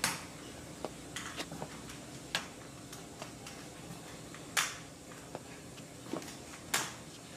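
A crutch's tip knocking on a hard floor in slow, even steps about every two seconds, with softer footfalls and scuffs between, over a low steady room hum.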